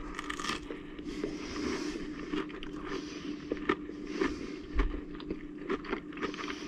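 Close-up chewing of crispy crumbed, pan-fried fish, with the crumb crunching and crackling in many short, irregular bites.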